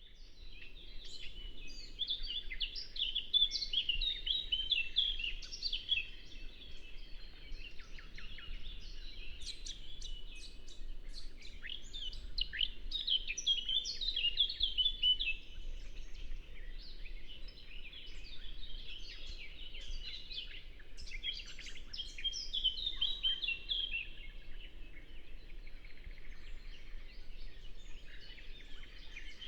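Several songbirds singing and chirping at once in a dense, overlapping chorus of short, high notes, over a faint steady low rush.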